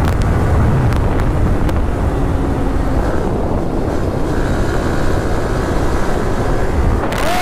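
Steady wind rush and road noise on the rider's microphone while a Yamaha motorcycle runs at road speed, with the engine note faint beneath it.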